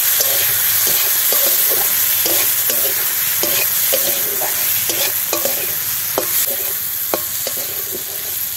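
Sliced onions, capsicum and chilli sizzling in hot oil in a metal kadai while a metal spatula scrapes and stirs them across the pan in quick repeated strokes, with a few sharper taps of the spatula on the pan in the second half.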